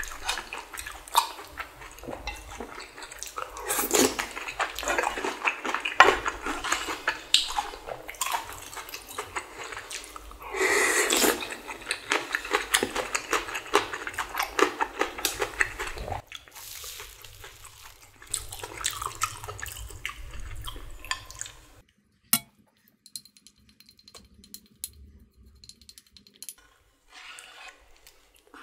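Slurping and chewing of spicy ramen noodles with bean sprouts, with utensils clinking against the bowl. There is a long loud slurp about ten seconds in. About two-thirds of the way through the sound drops sharply, leaving quiet chewing and occasional clicks.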